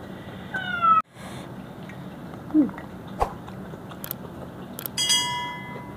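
A house cat meows once, a short falling call about half a second in, and the sound drops out for a moment just after. Near the end a click is followed by a steady electronic chime lasting about a second, the sound effect of a subscribe-button overlay.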